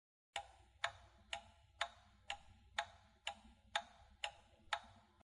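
A countdown timer sound effect: about ten even clock-like ticks, roughly two a second, marking the time left to answer.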